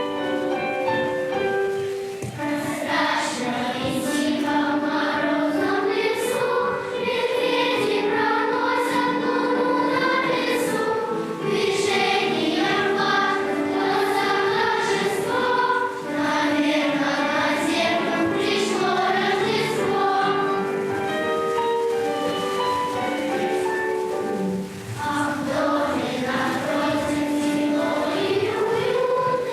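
A choir singing a song over instrumental accompaniment, with held notes under the moving melody.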